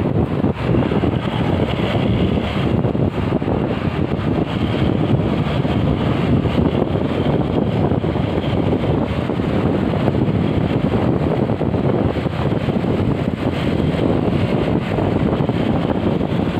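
Wind buffeting the microphone of a moving motorcycle, mixed with road and traffic noise: a steady low roar.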